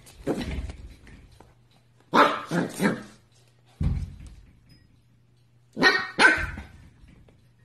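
Puppy barking: three quick barks about two seconds in and two more near the end, with a dull thump between them.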